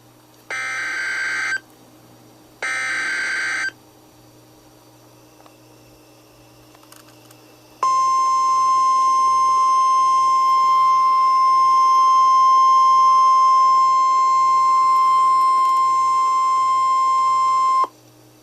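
The last two of the three EAS SAME header data bursts, each about a second of harsh digital screech, then after a pause of about four seconds the NOAA Weather Radio 1050 Hz warning alarm tone, one steady high tone held for about ten seconds. Together they open a tornado warning alert.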